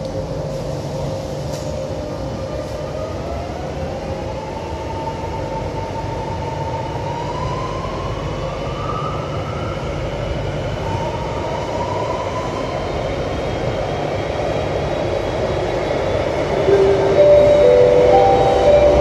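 Alstom Metropolis C751C metro train running, heard from inside the car: a steady rumble of wheels on track, with the electric traction motors whining in tones that rise in pitch as the train picks up speed. Near the end a louder set of short steady tones comes in.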